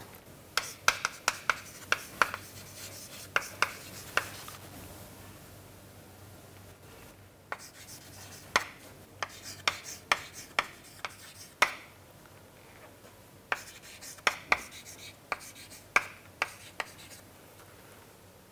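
Chalk writing on a chalkboard: quick taps and short scratches of the chalk as letters are formed. It comes in three bursts with short pauses between them.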